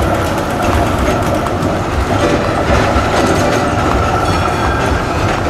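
Melbourne trams rolling past, their steel wheels rumbling and clattering over the rails.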